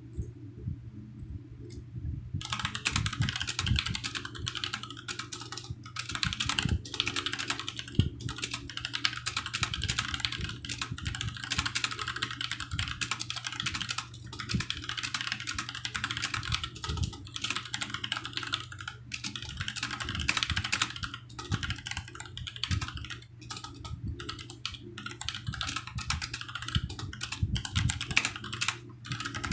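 Fast continuous typing on a Rakk Kimat TKL mechanical keyboard with Gateron Black linear switches: a dense clatter of keystrokes that starts a couple of seconds in, over a faint steady low hum.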